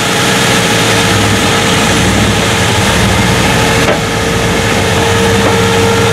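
Off-road vehicle engine running steadily, with a steady whine over it.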